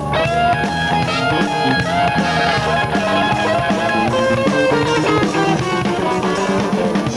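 Live Tejano band playing instrumental music, with electric guitar prominent over bass and drums.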